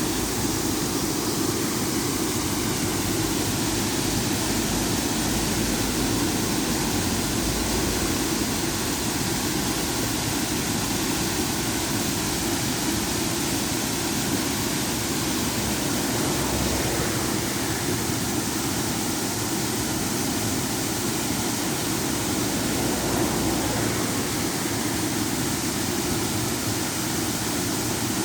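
Small river waterfall: water pouring and splashing in a steady, unbroken rush.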